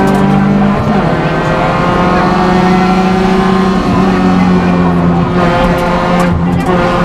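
Rally car engine running hard under load, heard from inside the cockpit. The revs hold fairly steady, with brief breaks about a second in and again near the end.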